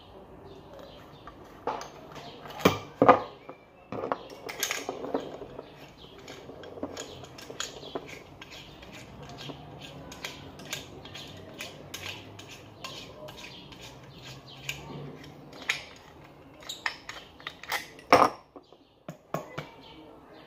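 Metal clicks, clinks and knocks of an old chrome washbasin tap's parts being handled and fitted together, with a couple of louder knocks about three seconds in and a sharp one near the end.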